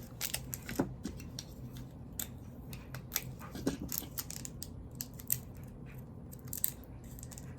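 Irregular light clicks and taps of small wrapped candies (Tootsie Rolls) being set into a cardboard box.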